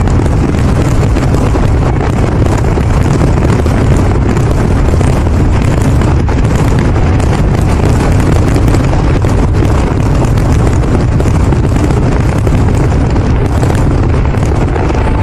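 Fireworks barrage: a continuous, loud rumble of aerial shell bursts with dense crackle running through it.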